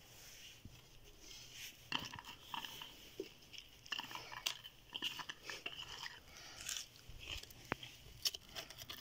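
Hands mixing and squeezing raw bone-in meat chunks with tomatoes and garlic in a metal pot: irregular wet squelches and small clicks of meat and bone against the pot, busier from about two seconds in.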